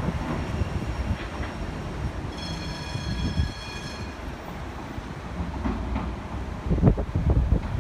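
Sheffield Supertram Class 399 tram-train running along street track, a low rumble from its wheels on the rails. About two seconds in there is a steady high-pitched squeal lasting under two seconds, and near the end a few loud low thumps.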